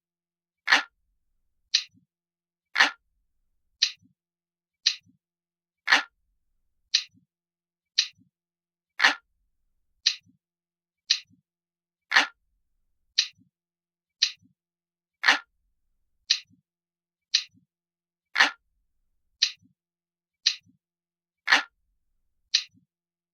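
Ticking clock sound, one sharp tick about every second at a steady pace, every third tick a little louder.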